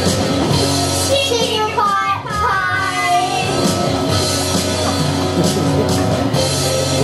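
Recorded backing music playing steadily over a hall's sound system, the lead-in to a children's song, with a gliding melody line between about one and three seconds in.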